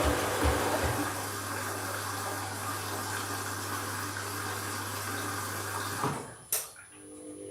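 Candy washing machine taking in water during an empty bleaching cycle: a steady rush of water with a low hum, which cuts off about six seconds in, followed by a single sharp click.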